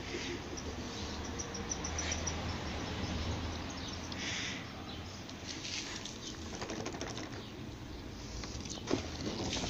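Rustling and scraping of a dog's plastic cone collar as the dog moves about on a tiled floor, with scattered clicks and a sharp knock near the end.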